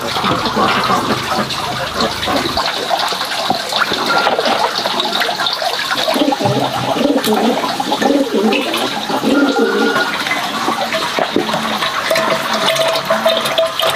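Liquid rendered pork lard poured from a plastic dipper into a glass jar, a continuous gushing pour.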